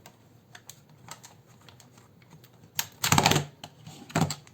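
Small plastic clicks and rattling as a netbook's battery is unlatched and pulled out, with a loud cluster of clicks about three seconds in and another sharp click near the end.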